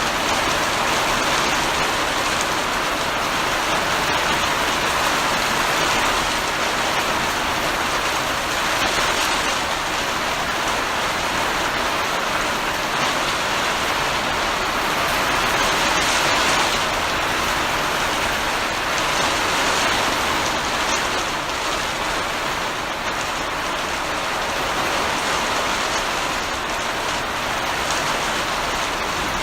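Heavy rain pouring steadily, a dense even hiss of drops with small swells in intensity.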